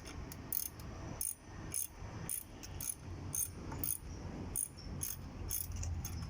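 Hand ratchet wrench clicking in short back-and-forth strokes, two or three sharp clicks a second at an uneven pace, as bolts are worked on.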